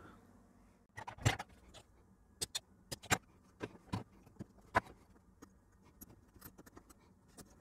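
Light, irregular clicks and taps as a soldering iron and fingers work on a ZX81 circuit board, freeing the wires from the old TV modulator; the clicks come in a loose run between about one and five seconds in.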